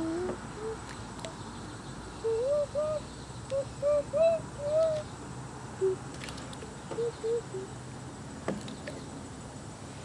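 A bird calling in a run of short, low notes that each rise and fall, a quick series of about a dozen starting about two seconds in and a few more later, over a steady outdoor background hum.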